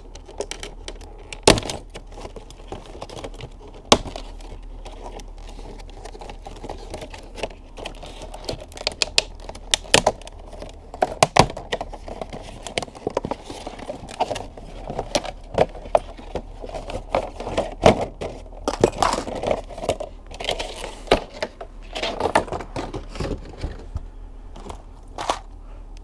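Stiff clear plastic packaging crinkling and crackling as it is handled and pried open, with many irregular sharp clicks and pops.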